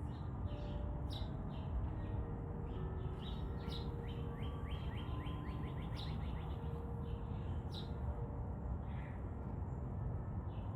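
Garden birds singing, a mix of short falling chirps with a quick run of falling notes a little after four seconds in, over a steady low outdoor rumble.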